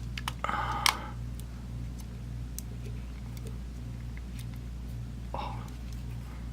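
Faint, scattered small clicks from handling tiny phone parts while pressing the camera's ribbon connectors onto the board, over a steady low hum. There are two brief murmured vocal sounds, one about half a second in and one near the end.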